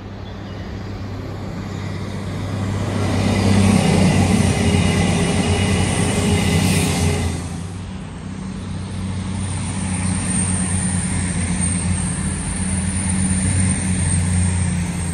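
CrossCountry Voyager diesel multiple unit passing at speed without stopping: its engines and wheels build to a peak about four seconds in. Then, after a sudden change, a second passenger train passes with a steady low hum.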